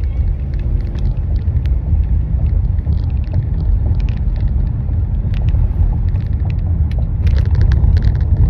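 Steady low rumble inside a car, with scattered light clicks and a short run of rattles near the end.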